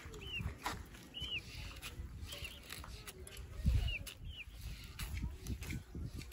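Several short, high, arched chirps from a bird, spread through, over light clicking and rustling of dry straw strands being handled and woven by hand.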